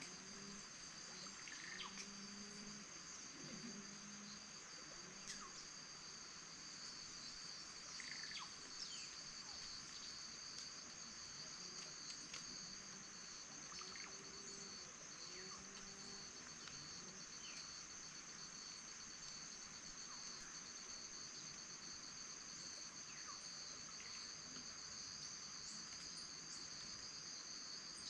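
Steady chorus of insects shrilling in two high, unbroken tones, with scattered brief bird chirps over it.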